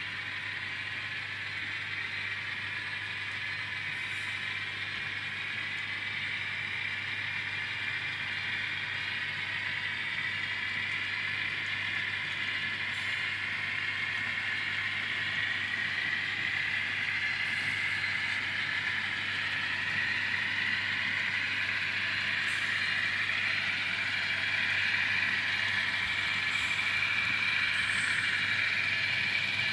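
Kato N scale model train running on the track: a steady whirr of the small locomotive motor and wheels on rail, slowly getting louder, with a few faint ticks.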